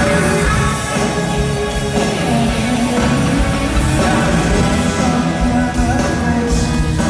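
Live rock band playing, with an electric guitar carrying the melody over bass and drums, loud and full.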